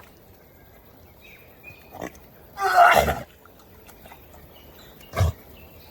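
A dog's loud, rough vocal sound, one call lasting under a second about three seconds in, followed by a shorter, sharper sound a little after five seconds.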